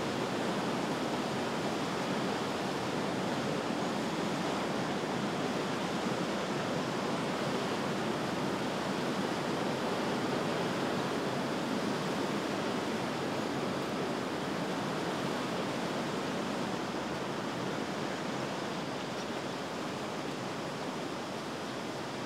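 Steady rush of flowing river water, easing slightly near the end.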